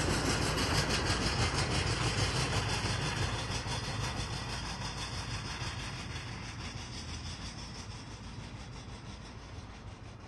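Jet airliner engine noise, a broad rush with a deep rumble, fading steadily as the aircraft moves away.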